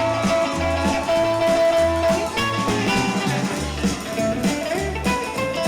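Rockabilly band playing an instrumental break: a lead guitar solo with bent, sliding notes over a walking bass line and drums.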